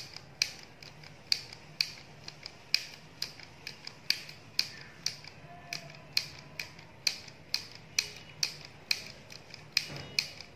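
Handheld stapler-style mini sewing machine clicking with each squeeze as it stitches through cloth: a steady run of sharp metallic clicks, about two a second, each press making one stitch.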